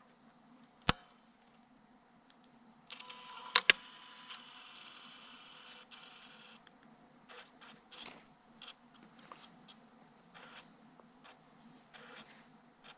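Steady chirring of crickets. Over it come sharp clicks from a fibre-optic fusion splicer being closed and worked: one about a second in, a quick double click near four seconds, then fainter ticks.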